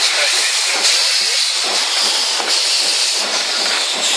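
Steady hiss of steam from steam locomotive Ab 699, heard from its cab while it runs along the line, with a few light knocks.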